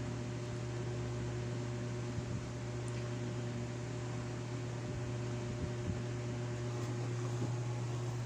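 Steady low electrical hum with an even hiss, like a fan or mains hum, with a few faint small ticks.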